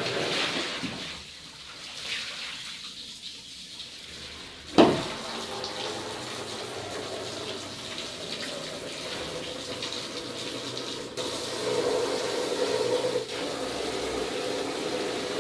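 Water splashing and sloshing as clothes are rinsed by hand in a basin of soapy water, with a single sharp thump about five seconds in and a louder stretch of sloshing a little before the end.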